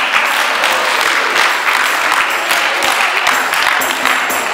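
Audience applauding, many hands clapping steadily. Music starts up near the end.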